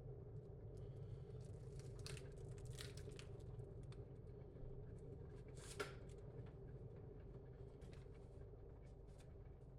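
Faint handling noises: light rustling and small clicks, with one sharper click a little under six seconds in, over a steady low room hum.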